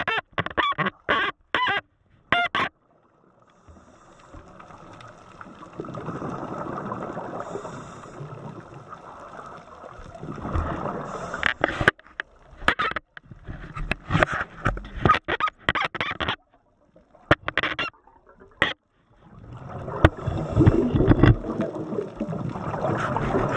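Scuba diver breathing underwater through a regulator: long rushes of exhaled bubbles, with runs of short clicks and knocks between the breaths.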